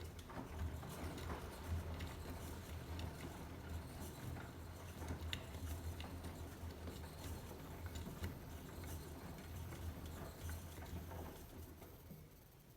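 Beko washing machine's drum turning during a towel wash, with a low pulsing motor hum and wet towels tumbling with scattered light knocks. The sound falls away shortly before the end as the drum pauses.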